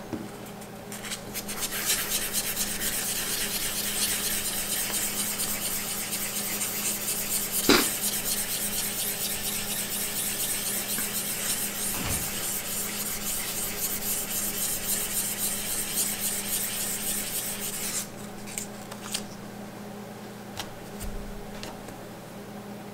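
A gauze pad rubbed repeatedly along a bare aluminum beam, wiping conditioner off the freshly abraded surface. It is a steady scratchy rubbing that starts about a second in and stops sharply near the end, with one sharp click about a third of the way through.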